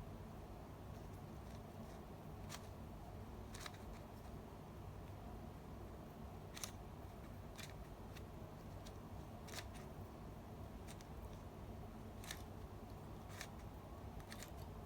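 Scattered sharp plastic clicks from a Rubik's cube and its packaging being handled, about ten at uneven intervals, over a steady low hum.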